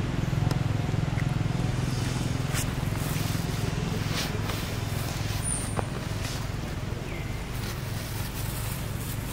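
A steady low motor hum, like an engine running nearby, fading slightly, with a few faint clicks.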